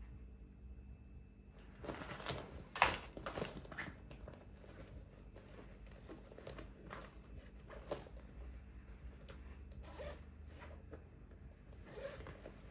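Rummaging: scattered rustles and clicks of things being handled and moved. They start about two seconds in, with one sharper click about three seconds in.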